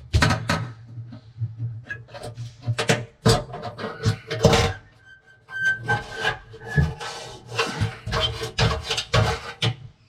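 Metal knocks, clatter and scraping as an oven bake element and its mounting are handled and fitted against the oven's sheet-metal back wall, ringing with echo in an empty room.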